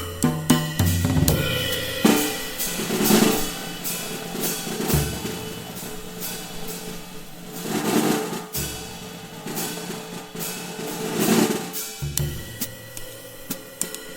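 Drum kit played freely as a solo, with snare rolls, bass drum strokes and cymbals, swelling louder three times.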